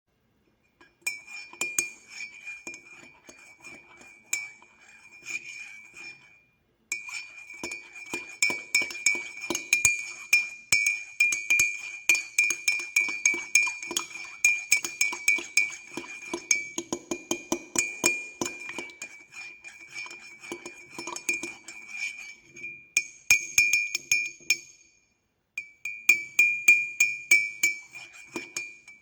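Teaspoon stirring sugar into a cup of coffee with milk, clinking rapidly against the inside of the cup, each clink ringing at the same pitch. The stirring pauses briefly twice, about six seconds in and near the end.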